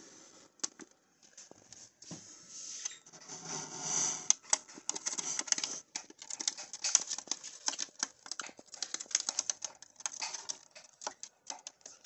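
Baby budgies' claws and beaks tapping on a plywood floor as they walk about and peck at greens: a rapid, irregular patter of small clicks, densest after the first few seconds. A brief louder rustle comes about three to four seconds in.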